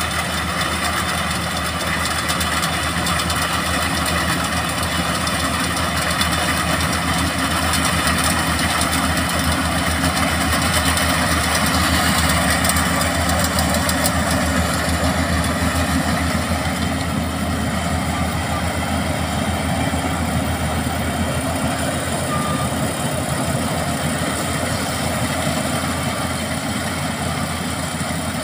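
Kubota AR90 combine harvester running steadily as it cuts rice: its diesel engine and harvesting machinery make a continuous hum. It is loudest about halfway through and grows a little quieter as the machine moves away.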